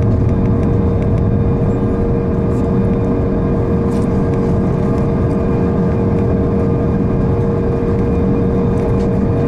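Cabin noise of an Airbus A340-600 climbing after takeoff: steady jet engine and airflow noise, loud and unbroken, with a constant humming tone.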